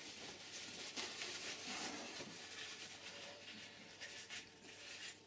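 Faint rustling and rubbing of paper towel as the aluminium cylinder head of an air compressor is wiped down by hand.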